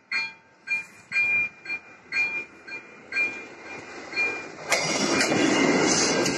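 AŽD 97 level-crossing warning bell ringing with evenly spaced strikes, about two a second. About two-thirds of the way in, a single-car diesel railbus (Czech class 810 type) passes over the crossing, its engine and wheels loud enough to drown out the bell.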